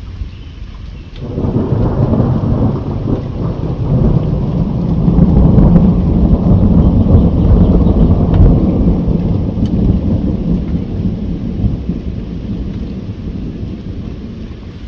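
A long roll of thunder that breaks suddenly about a second in, rumbles deep and loud for several seconds, then slowly fades, over steady rainfall.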